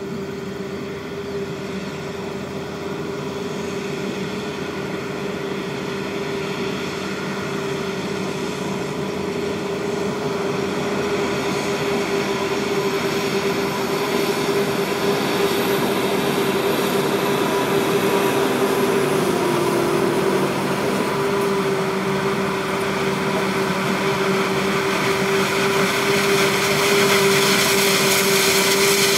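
Claas Jaguar 980 self-propelled forage harvester running under load, chopping standing corn for silage: a steady machine drone with a strong steady hum. It grows steadily louder as the harvester comes closer, and the hum dips briefly in pitch about two-thirds of the way through.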